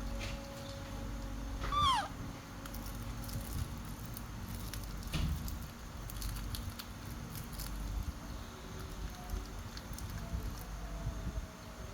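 Baby monkey giving one short, meow-like squeal that falls in pitch, about two seconds in. Faint scattered ticks and rustles are heard around it.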